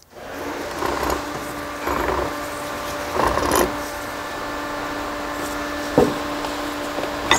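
Metal parts of a BorgWarner 1356 transfer case scraping and clinking as the main shaft is worked out of the housing, a few separate rubs and a small click over a steady hum, ending with a sharp clank.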